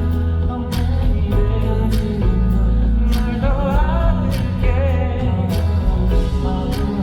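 Live pop ballad performed by a band with singing: steady drum hits about once a second over sustained bass and keys, with a wavering sung melody line.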